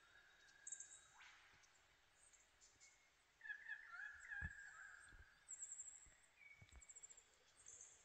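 Faint forest birds calling: scattered high chirps and short trills, with a louder bout of warbling calls from about three and a half to five seconds in. A few soft low thumps are mixed in.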